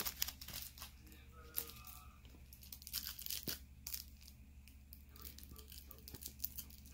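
A dog nibbling and chewing on a plush toy: irregular soft clicks, scrapes and rustles of teeth on fabric, over a steady low hum.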